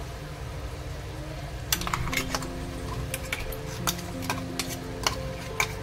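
A metal spoon clicking and scraping against a steel bowl and the kadai as thick onion paste is scooped into a simmering curry, starting about a second and a half in, over the curry's low sizzle. Soft background music with held notes plays underneath.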